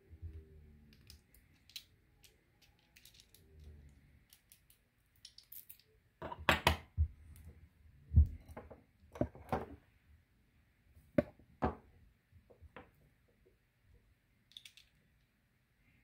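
Small metal clicks and taps of an Assa Twin Exclusive lock cylinder and its parts being handled during reassembly, with a cluster of sharper knocks between about six and twelve seconds in.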